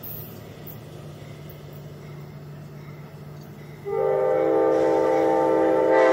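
An approaching Amtrak diesel passenger locomotive sounds one long blast of its horn, starting abruptly about four seconds in over a low steady hum.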